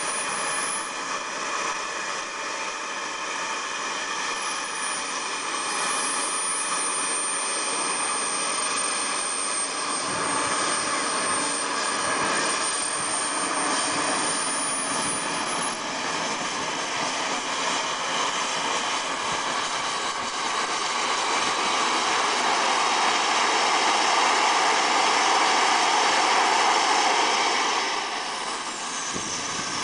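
Model turbine engines of a radio-controlled MiG-29 scale jet running on the ground: a steady high-pitched turbine whine over a rush of exhaust. It grows louder for several seconds near the end, then eases back.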